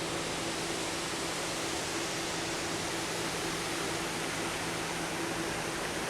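Steady rush of river water pouring over a small dam, with a faint steady hum underneath.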